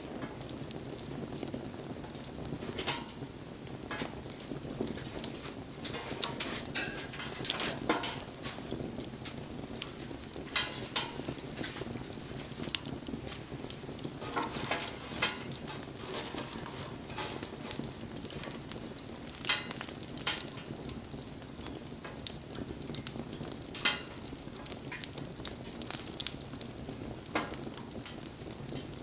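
Wood bonfire burning: a steady hiss with frequent sharp crackles and pops at irregular intervals, a few pops louder than the rest.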